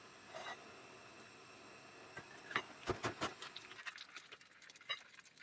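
Light clicks and knocks of something being handled, in a cluster about two and a half to three and a half seconds in, followed by fainter scattered ticks.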